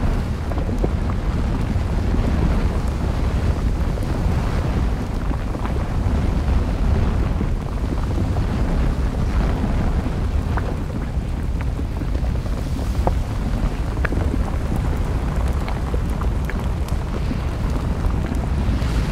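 Volcanic eruption and lava flow heard up close: a steady low rumble with scattered sharp crackles and pops.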